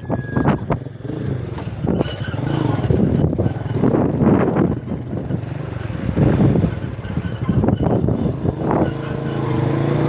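Motorcycle engine running steadily while the bike is ridden, with uneven bursts of noise over it.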